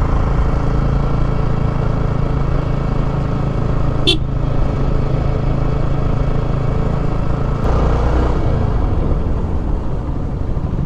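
Yamaha sport motorcycle's engine running steadily at cruising speed, with wind and road noise, heard from the rider's seat. A short sharp sound cuts in about four seconds in.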